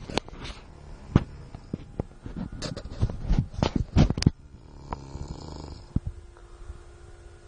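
A man snoring in his sleep. A run of sharp clicks and knocks over the first four seconds or so is the loudest part, followed by quieter, low snoring.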